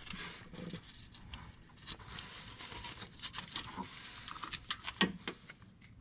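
Faint, irregular clicks, ticks and rustling of hand tools and metal engine parts being handled, with a few sharper clicks around the middle and near the end.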